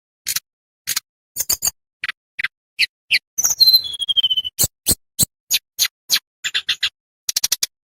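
Tledekan bambu songbird singing: an irregular string of sharp, clicking chips and short notes, with a falling whistled note about three and a half seconds in and a quick rattle of clicks near the end.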